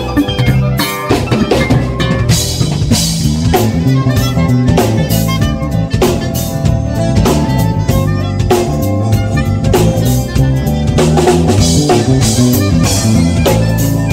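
A live band playing: a drum kit keeping a steady beat with snare and rimshot hits over a prominent, stepping bass guitar line, with other pitched instruments above.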